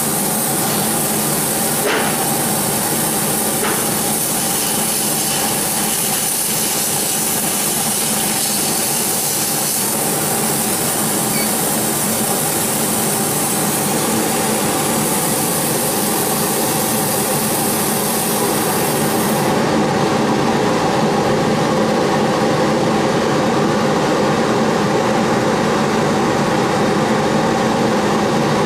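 A 130 W laser cutting machine running while cutting carpet: a steady mechanical hum of fans and motors with a high hiss that cuts off suddenly about two-thirds of the way through.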